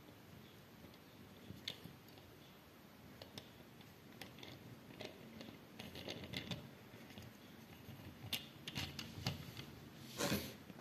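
Faint plastic clicks and scuffs as a small Lego model truck is pressed down and rocked by hand on a woven placemat, its pendulum axles flexing. There is a louder scrape and rustle near the end.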